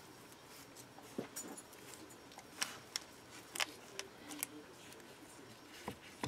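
Faint handling sounds of fingers pressing and sliding polymer-clay strands on a paper-covered work surface: a handful of small taps and rustles scattered through.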